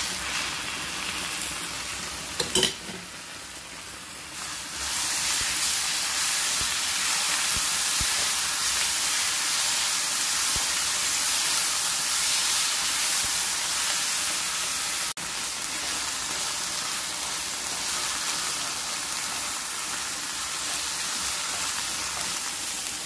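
Diced onion, pepper and tomato paste sizzling as they fry in oil in a frying pan, stirred with a wooden spatula. There is a short knock about two and a half seconds in, and the sizzle gets louder at around four to five seconds.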